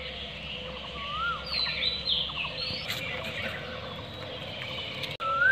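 Birds calling: short whistled notes that rise and fall, and quick higher chirps, over a steady low background hum. The loudest is a rising-and-falling whistle near the end.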